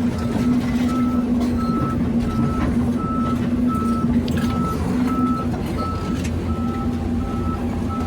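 Heavy diesel machinery running steadily, with a back-up alarm beeping at an even pace of about three beeps every two seconds.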